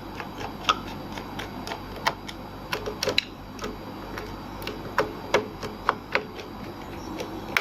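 Screwdriver tightening the screws of a laptop's back cover: a string of short, uneven clicks, two or three a second.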